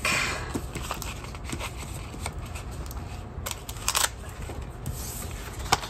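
Paper sticker sheets and planner pages being handled on a tabletop: soft rustling and light taps, with sharper rustles about three and a half and four seconds in.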